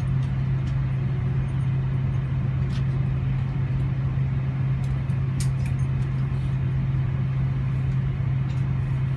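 Steady airliner cabin noise: a constant low hum over a haze of air noise, with a couple of faint clicks.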